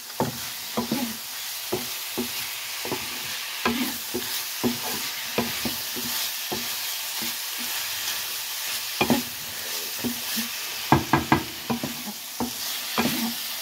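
Shrimp, diced potatoes and vegetables sizzling in a hot frying pan while a wooden spatula stirs them, knocking and scraping against the pan at an irregular pace, with a quick run of knocks about eleven seconds in.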